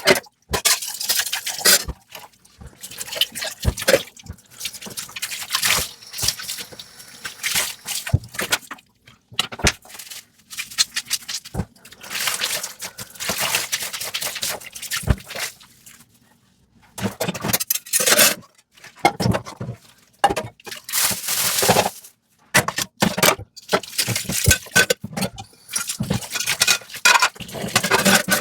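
Dishes being washed by hand in a sink: water splashing and running in irregular spells, with scattered sharp knocks of dishes, and a brief lull about two-thirds of the way through.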